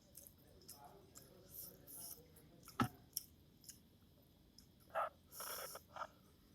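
Person eating Maggi noodles: faint chewing and mouth clicks, a sharp click just before three seconds in, and a short cluster of noisy bursts near the end.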